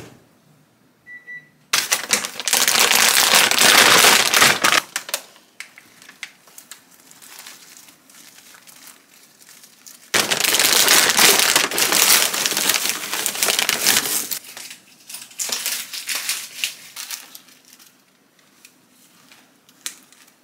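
Crinkling of a plastic bag and a paper stock pouch handled by hands as dried pollack is packed into the pouch. It comes in two long bouts, a few seconds each, with smaller rustles after the second.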